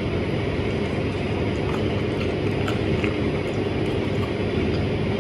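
A steady mechanical hum, with a few faint mouth clicks from chewing a mouthful of garlic bread.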